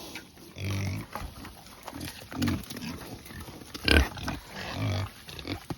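Kunekune pigs grunting in a string of short, low grunts, with a louder, sharper one about four seconds in.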